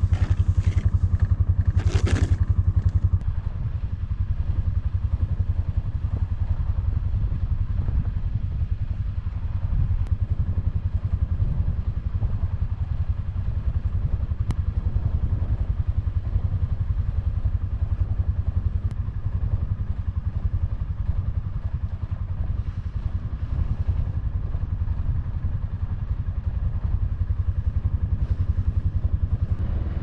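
Can-Am Defender HD7 utility vehicle's engine idling steadily, with two short scrapes in the first couple of seconds.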